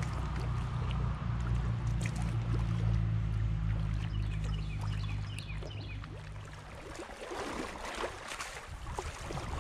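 Kayak paddling on a river: water trickling and splashing off the paddle blades. A low steady rumble dominates for the first seven seconds or so, then fades, leaving the splashes of the strokes.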